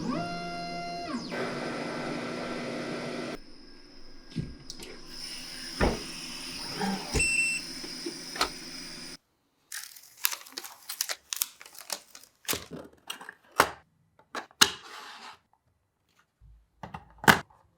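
A steady mechanical running sound whose tones slide downward at the start, then a fainter hum with a few knocks. After a sudden break comes a long run of sharp, separate clicks and knocks.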